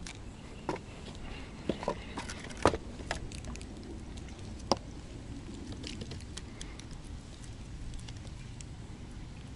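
A scatter of sharp taps and knocks as a freshly caught crucian carp is landed and unhooked by hand over a wooden pier, loudest about two and a half and four and a half seconds in, with lighter ticks later.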